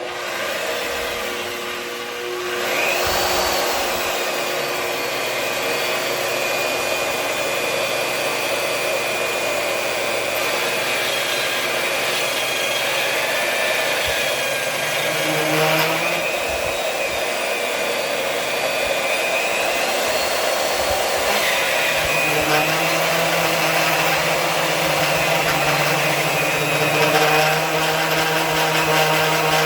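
Vevor 1550W magnetic drill's electric motor running loud, with its annular cutter boring a 1-inch hole through steel plate. The sound swells about two and a half seconds in as the cutter bites, and its tone shifts a couple of times during the cut.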